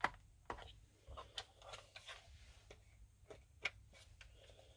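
Light clicks and rustling of plastic and cable as a charger lead is handled and plugged into a WORX 24V lawnmower battery pack, with the sharpest click about three and a half seconds in.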